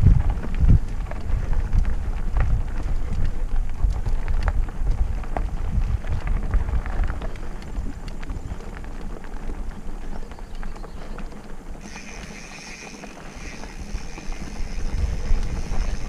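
Mountain bike riding fast down a dirt singletrack: tyres crunching over the trail, wind rumbling on the helmet microphone, and the bike rattling over bumps. About twelve seconds in, as the rumble drops with the bike slowing, a steady high-pitched squeal comes in from squeaky bike brakes.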